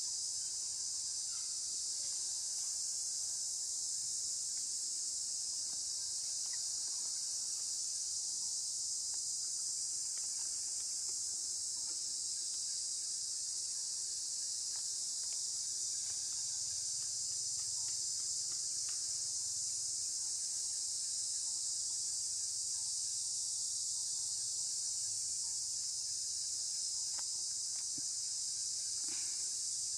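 Steady, high-pitched drone of a chorus of insects, unbroken and even in level.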